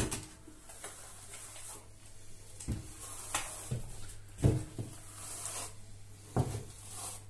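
Steel plastering trowel working wet base-coat plaster on a wall: soft scraping with a handful of short sharp knocks and clicks a second or two apart, the loudest about four and a half seconds in.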